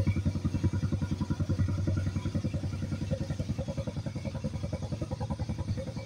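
A small engine running with a steady thudding beat, about a dozen beats a second, slowly fading.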